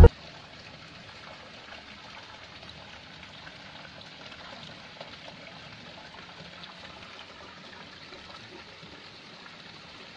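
Faint, steady trickling of water in a koi holding tub.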